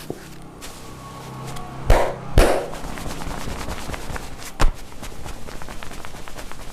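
Hands slapping the body during a percussive massage: three loud, sharp slaps, the first two about half a second apart and the third two seconds later, with a steady run of quick light taps beneath from about halfway through.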